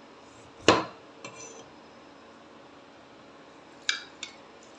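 Kitchen clatter: one sharp knock with a short ring about a second in, then two light knocks near the end as a cleaver cuts through a small citrus fruit onto a plastic cutting board.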